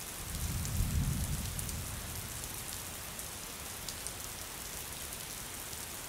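Steady rain falling, with a low rumble of thunder that swells and fades in the first two seconds.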